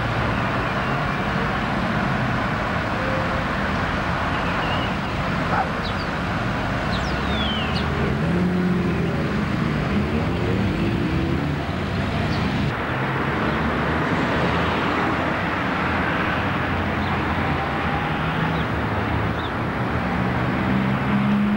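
Street traffic: a steady hum of road vehicles with the low drone of a double-decker bus's engine running.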